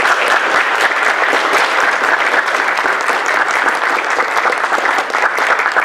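Audience applauding: many people clapping steadily, without a break.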